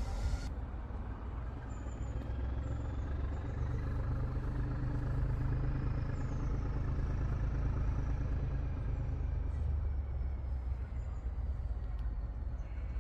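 Diesel locomotive engine running at a distance: a steady low hum that holds for several seconds in the middle and then drops away, over a low rumble, with a few short bird chirps.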